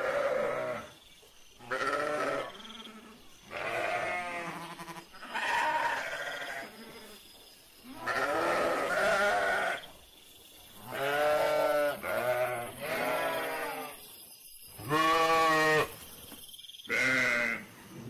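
Sheep bleating over and over, about nine calls with short pauses between them, some of the calls wavering in pitch.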